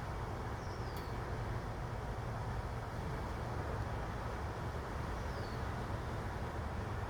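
Steady outdoor background noise with a low hum, like distant traffic, and a small bird chirping faintly twice, with a single click about a second in.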